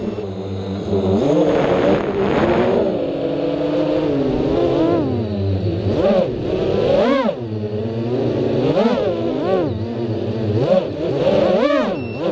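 FPV racing quadcopter's brushless motors and 5-inch two-blade propellers whining, the pitch swooping up and down many times with the throttle, over a rush of wind.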